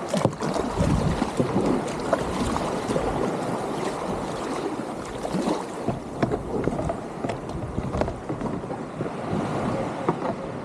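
Sea water splashing and sloshing around a fishing kayak as it is launched off the beach into small waves, with wind buffeting the microphone.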